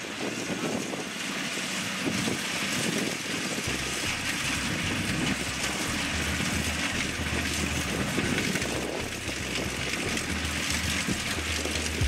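Kubota DC70 Plus combine harvester running steadily as it cuts rice: a continuous engine and machinery drone with a dense mechanical noise from the cutter and threshing drum.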